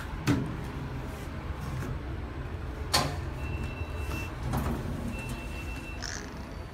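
Lift car running: a steady low hum of the elevator in motion, with a few sharp clicks and a faint high beep tone that sounds in stretches of about a second over the second half.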